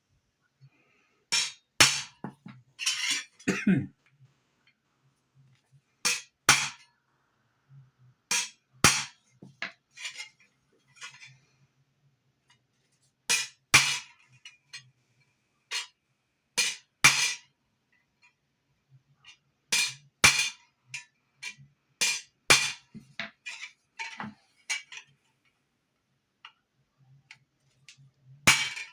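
Hammer striking a metal tool held on a metal buckle to work along a marked line. The blows are sharp and ringing and come mostly in quick pairs every two to three seconds, struck with an even force.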